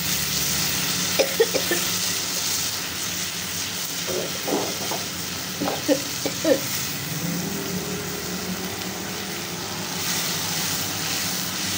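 Sliced onions in hot oil with a splash of water sizzling and bubbling in a nonstick frying pan, a steady hiss. A spatula stirs and knocks against the pan a few times, about a second in and again around the middle.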